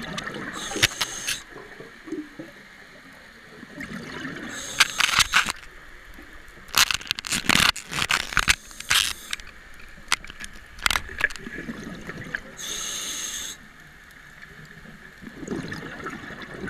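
A scuba diver breathing through a regulator underwater: hissing inhales of about a second alternate with crackling, gurgling bursts of exhaled bubbles, several breath cycles in a row.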